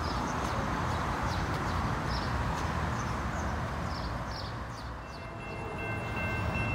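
Steady outdoor rushing noise, then about five seconds in a railroad grade crossing's warning bell starts ringing in even, repeated dings, the signal that the crossing has activated for an approaching train.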